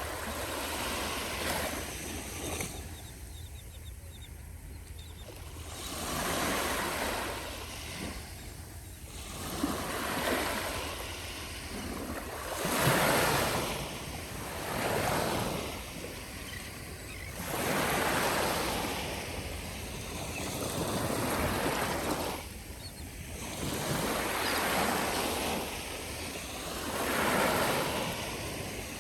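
Small ocean waves breaking and washing on a beach, a soft swell of surf every two to three seconds over a steady low rumble. The sea is very calm, so the breakers are gentle.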